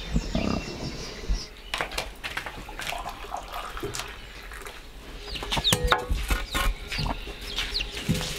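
Chickens clucking, with scattered clicks and knocks.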